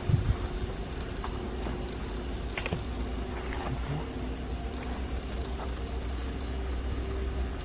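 Crickets chirring steadily at night, one unbroken high-pitched trill, with a few short crunches of footsteps on dry ground.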